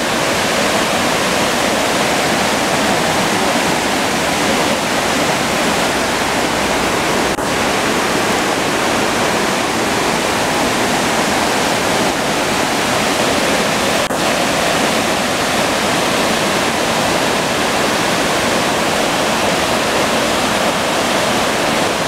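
Waterfall and the rocky stream below it rushing steadily, a dense, even sound of falling water.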